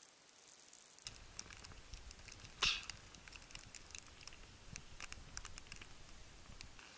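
Faint, irregular crunching and ticking of footsteps in snow, with one louder knock about two and a half seconds in.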